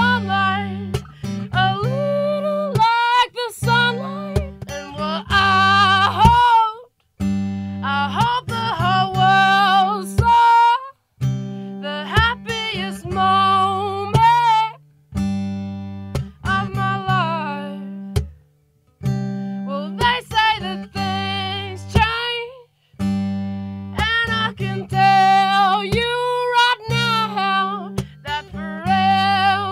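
Background music: a song with acoustic guitar and a singing voice, in phrases broken by short pauses.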